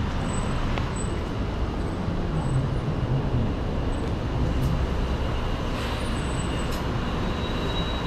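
City transit bus engine running close alongside, a steady low engine drone over general street traffic, with a thin high tone coming in near the end.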